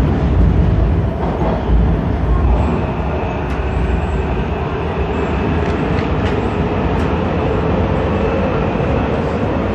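WMATA Breda rehab metro car running through a tunnel, heard from inside the car: a steady, loud rumble of wheels and running gear. A faint motor whine comes in and rises slightly through the second half.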